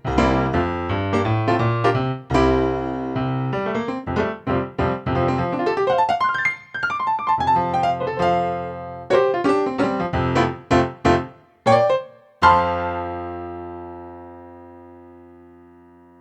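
Korg Kronos 3 workstation keyboard played on a piano sound: chords and melody, with a quick run of notes about halfway through. A final chord struck near the end rings out and slowly fades.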